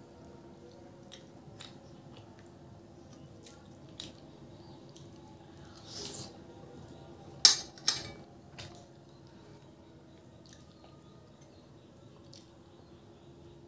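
Close-up eating sounds of chicken curry and puri eaten by hand: soft chewing and wet mouth noises with scattered small clicks. A little past halfway come two sharp wet smacks close together, the loudest sounds, then a smaller one.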